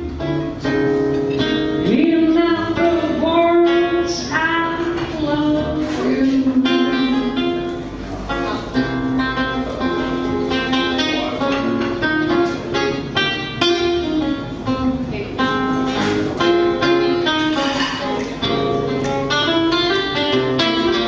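Acoustic guitar playing quick plucked notes with a woman singing along.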